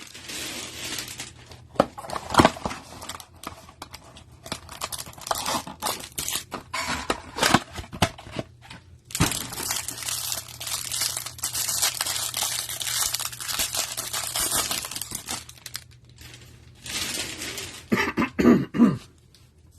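A trading-card hanger box being opened by hand: cardboard tearing and a plastic wrapper crinkling, with scattered clicks and rustles. A longer stretch of rustling runs from about nine to fifteen seconds in.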